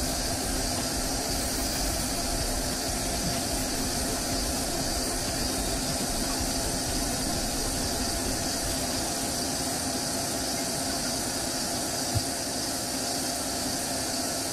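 Steady mechanical hum of a Doosan CNC lathe running, with a high hiss over it and no change in pitch. A single light knock comes about twelve seconds in.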